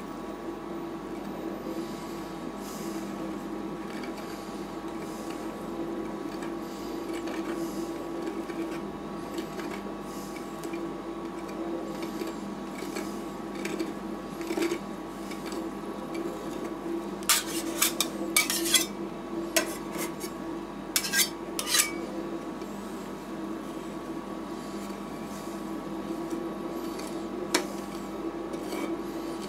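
Steel spatulas scraping and clinking on the stainless freezing plate of a rolled-ice-cream machine as the mix is spread thin, with a run of sharp metal clinks past the middle. The machine hums steadily underneath.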